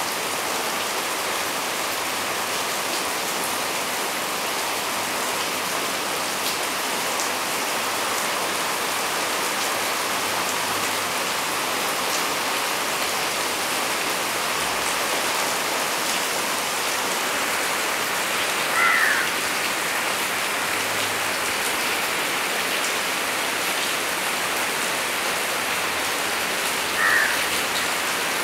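Steady rain pouring on coconut palm fronds and surrounding foliage, an even hiss of falling water. Two brief high chirps break through, one about two-thirds of the way in and one near the end.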